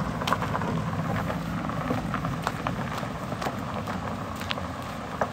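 A car pulling away along a narrow road, its low rumble slowly fading, with scattered light crunches and clicks close by.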